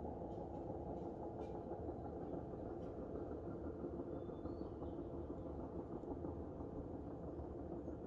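Steady low outdoor rumble of background noise, with one faint high chirp about halfway through.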